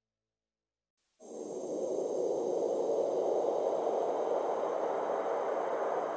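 Silence, then about a second in a hissing synth swell comes in suddenly and holds steady: the opening of an electronic background-music track.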